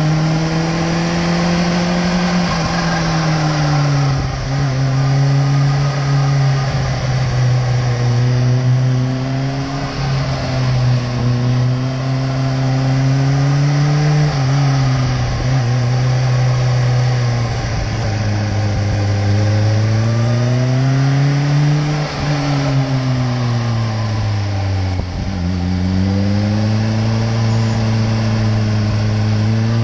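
Sport motorcycle engine heard from on board while riding, its speed rising and falling smoothly with the throttle, with a few quick drops, over steady wind and road hiss.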